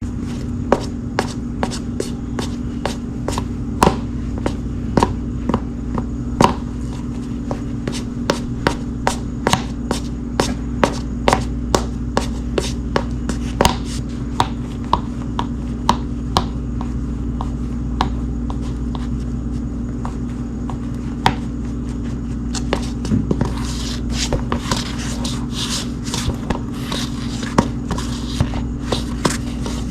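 Shoes walking on a hardwood floor: sharp footstep clicks, roughly one to two a second, over a steady low hum. Near the end the steps sound brighter and more scuffing.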